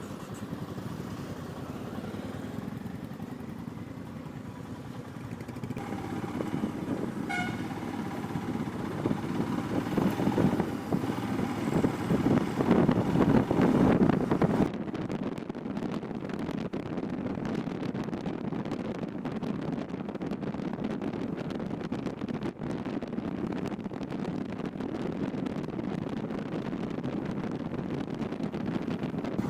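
Motorcycle riding along the road, heard from the bike: steady engine running with road and wind noise. It grows louder between about nine and fourteen seconds, then settles to a steadier, duller level.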